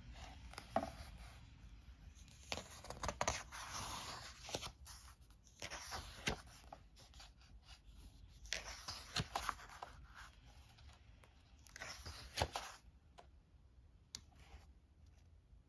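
Thick pages of a rulebook being turned by hand, paper rustling and swishing in about four separate page turns with quieter handling between them.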